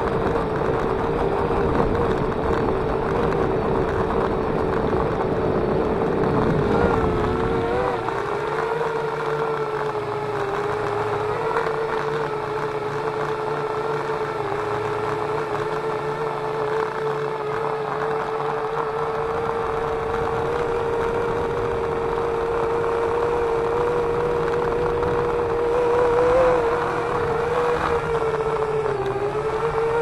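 Parrot Bebop 2 quadcopter's motors and propellers whining steadily, heard from a camera carried on the drone, the pitch dipping and rising a little as it manoeuvres. A low rumble lies underneath for the first eight seconds or so.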